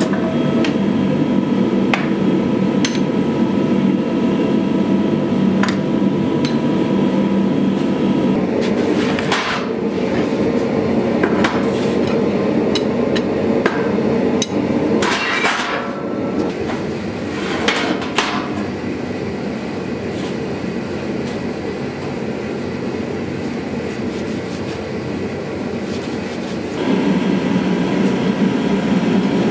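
A power hammer working a red-hot steel sword blank, a dense steady pounding, for the first several seconds. It gives way to a quieter stretch of scattered sharp metal clanks from tongs and steel against metal, and near the end the steady machine noise of the forge returns.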